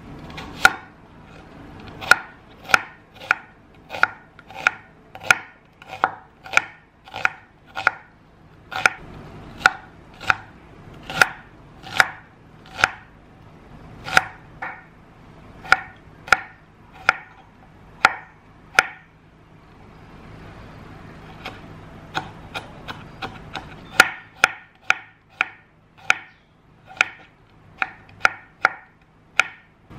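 Chef's knife chopping on a wooden cutting board, cutting an onion and then garlic cloves. Steady, sharp strikes come about one and a half a second, break off briefly a little past the middle, then come back quicker and lighter, about three a second.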